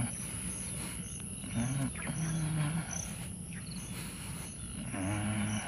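Insects calling in a steady high-pitched chorus with short repeated chirps over it. A low voice murmurs briefly about two seconds in and again near the end.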